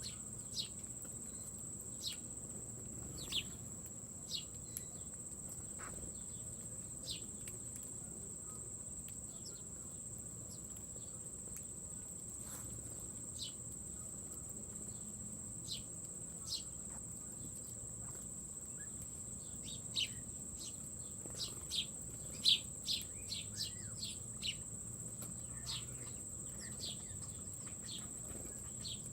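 A steady, unbroken high-pitched insect trill, with many short chirps from small birds scattered through it; the chirps come thickest about two-thirds of the way in.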